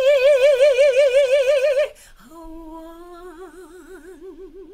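A woman's voice singing a gospel praise song unaccompanied. She holds the last note of "over me" loudly with wide vibrato for about two seconds, then breaks off. After a short breath she sings a softer, lower held note that takes on vibrato about halfway through.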